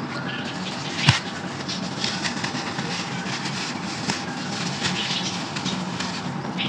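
Crunchy brown sand and clay chunks crumbling in a clay pot: a continuous gritty crackle of many small cracks, with one sharp knock about a second in.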